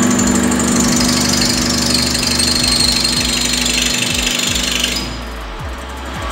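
Metal lathe spinning a freshly sharpened two-flute end mill while a metal rod in the toolpost is fed against it: a loud, high, rough cutting noise over the lathe's steady hum, a test cut of the new edges. The cutting noise stops about five seconds in while the lathe keeps running.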